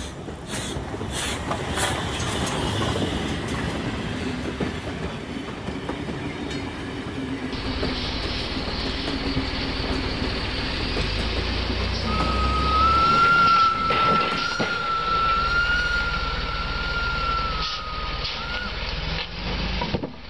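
Rhythmic clicking at first, then a flatbed truck's engine running with a low rumble as the truck drives off from under its load of used railroad ties, leaving them dumped on the ground. A steady, slightly wavering high whine runs for several seconds in the middle of it.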